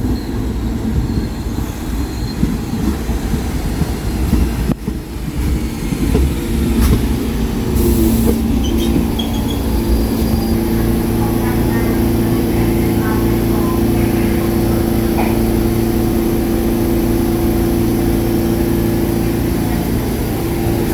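New York City subway train rumbling on the rails, with a few brief high squeals; from about six seconds in, it settles into a steady electrical hum.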